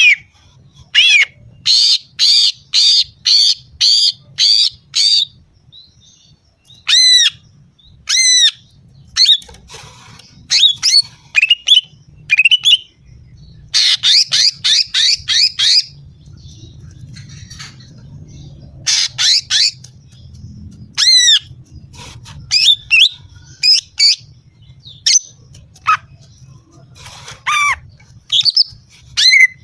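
Female greater green leafbird (cucak ijo) calling: quick runs of short, sharp down-slurred notes, several a second, repeated in bursts with brief pauses. It is a female call of the kind used as a lure to excite and draw male cucak ijo.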